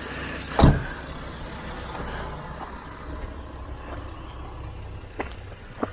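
A Jeep driving on a rough dirt mountain trail: a steady low rumble of engine and tyres, with one sharp thump about half a second in and a couple of lighter knocks near the end.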